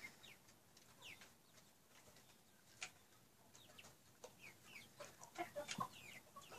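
Flock of young Label Rouge chickens feeding and giving faint, short, high calls that slide downward, more of them in the last couple of seconds. A single sharp click sounds about three seconds in.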